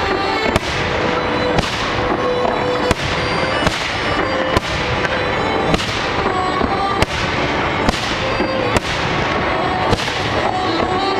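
Fireworks display: sharp aerial shell bursts about once a second, each bang echoing away, over a continuous crackle, with music playing underneath.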